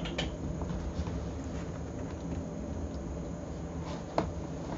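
Steady low room hum with a few faint knocks and rustles of someone moving about, and one sharp knock about four seconds in.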